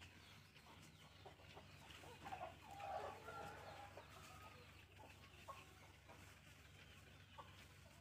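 Near silence, with a chicken clucking faintly for about a second and a half, a couple of seconds in.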